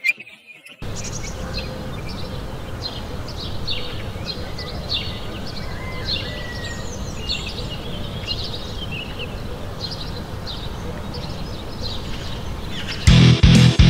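Outdoor ambience: many small birds chirping over a low, steady rumble. Loud electric-guitar music cuts in near the end.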